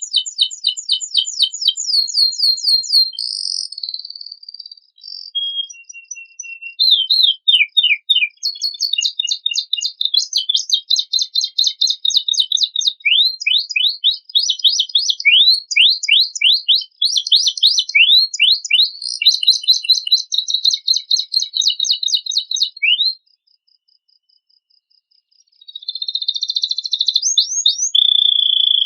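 Canary singing a fast, loud song of rapidly repeated sweeping chirps and trills, a song stocked with phrases copied from other birds. It breaks off for about two seconds near the end, then starts again.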